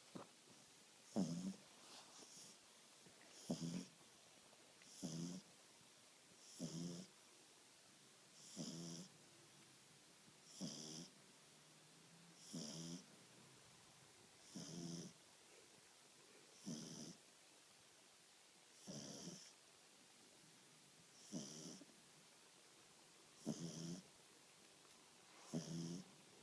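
A two-month-old French Bulldog puppy snoring in its sleep, one short snore about every two seconds. Each snore is a low buzz with a hiss above it.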